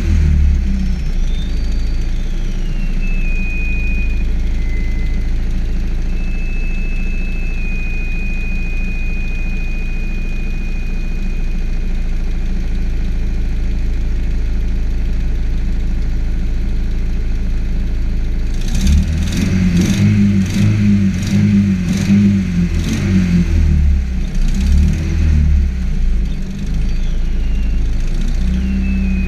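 Nissan CA18DET 1.8-litre twin-cam turbo four-cylinder idling on a cold start, with a steady low note and a thin high whistle that drops in pitch and then holds. About two-thirds of the way through, the engine note turns louder and uneven, surging irregularly for several seconds before settling again.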